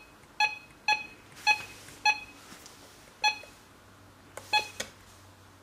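RadioShack 12-262 weather alert radio giving short electronic key beeps as its buttons are pressed to step through the state list: about seven beeps, the first four about half a second apart, the rest more spread out.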